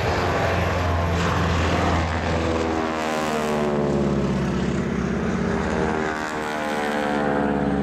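Boeing Stearman biplane's 450 hp Pratt & Whitney Wasp Junior radial engine and propeller flying past: a steady drone whose pitch falls as it goes by.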